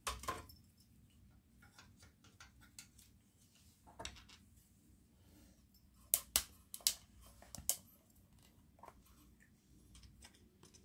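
Faint handling sounds on a CRT monitor: a knock about four seconds in, then a cluster of sharp clicks about six to eight seconds in as the rubber anode cap of the flyback's high-voltage lead and its wire clips are pushed into the picture tube's anode socket.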